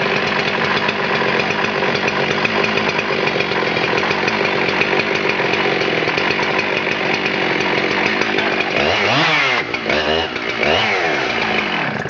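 Husqvarna 372 XP 71cc two-stroke chainsaw running at high revs. Near the end the revs drop and pick up again twice.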